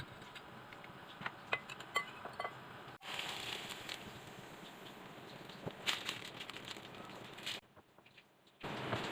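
Kitchen preparation sounds: scattered light clinks and taps of a utensil against dishes, some with a brief ring, in several short edited stretches, with a quieter gap near the end.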